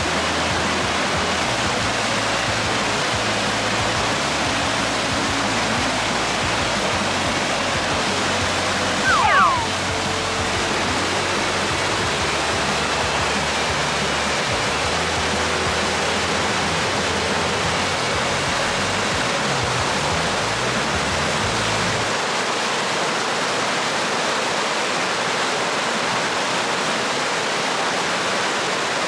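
Whitewater rushing steadily over a low river weir, a loud even wash of churning water. Background music with low bass notes plays under it and stops about three-quarters of the way through, and a brief falling sound cuts in about a third of the way in.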